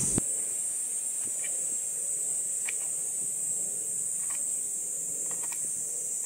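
Steady high-pitched drone of insects, with a few faint ticks of a folding knife cutting a garlic clove on a cutting sheet.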